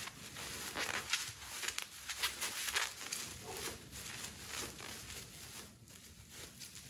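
Bubble wrap and clear plastic packaging crinkling and rustling in the hands as an item is unwrapped, in irregular crackles that thin out toward the end.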